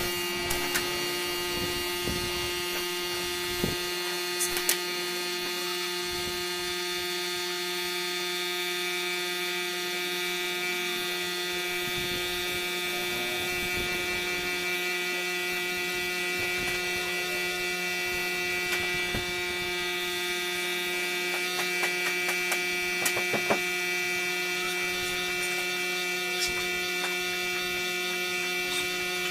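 Air compressor running with a steady buzzing hum, feeding a spray gun, with a few faint clicks.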